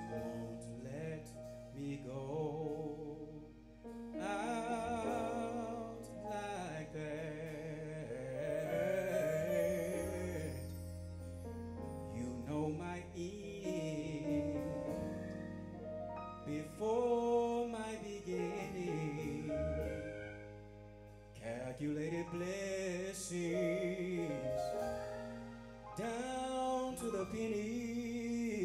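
Slow gospel song: a man singing long, wavering notes over sustained keyboard chords.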